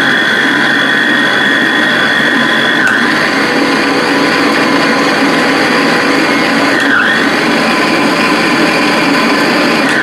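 Electric stand mixer running with an empty bowl, its motor giving a loud steady whine as its speed settings are tried out. The pitch dips briefly about three seconds in and again about seven seconds in as the speed dial is turned, then steps higher at the very end.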